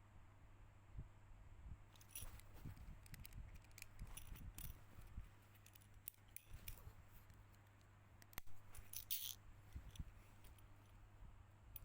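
Faint, scattered small clicks and light taps of small parts and tools being handled, in two clusters, over a low steady electrical hum.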